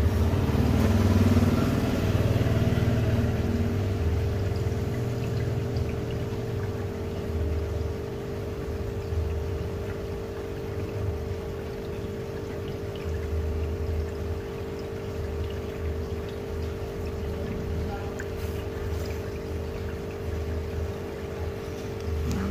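Aquarium pump humming steadily with water trickling. The water sound is a little louder and busier over the first few seconds.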